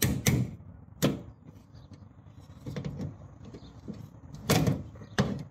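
Hammer tapping a flat blade wedged behind a van's plastic door trim panel to pry it off: several sharp taps at uneven intervals, the loudest few about four and a half seconds in.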